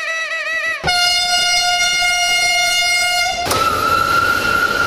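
Railway air horns in a run of abruptly cut clips. A warbling horn note gives way about a second in to a long steady single-note blast. At about three and a half seconds that cuts to a higher-pitched horn over the rumble of a passing train.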